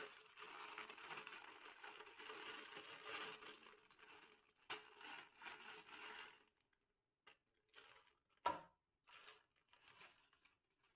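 Plastic snack packet crinkling and rustling as it is handled and torn open: a continuous rustle for about six seconds, then a few short separate crinkles with one sharper crackle about two-thirds of the way through.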